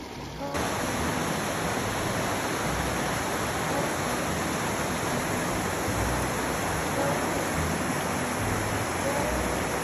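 Mountain creek rushing over rocks in whitewater rapids: a steady, loud rush of water that comes in suddenly about half a second in.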